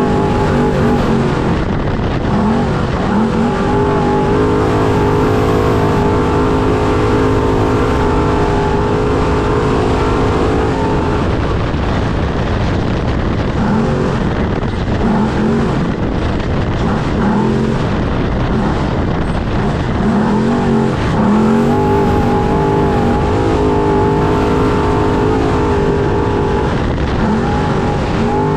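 Trophy truck's engine at racing speed, heard on board over steady wind and tyre noise. The revs hold high for several seconds, then dip and climb again and again with gear changes and throttle.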